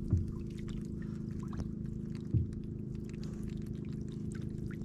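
Small boat engine idling steadily while a gill net is hauled in, with two dull knocks about a second apart and two seconds apart, plus light drips and clicks of water and wet net mesh.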